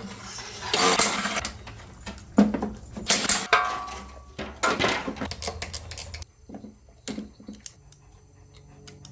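Metal parts and hand tools clinking and rattling during hand work on a small mower engine. The clatter is irregular for about six seconds, then drops off suddenly to a few scattered clicks.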